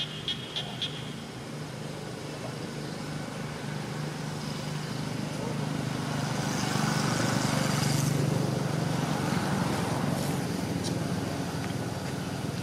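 A motor vehicle's engine passing, growing louder to a peak about eight seconds in and then fading. A short run of high chirps, about four a second, sounds in the first second.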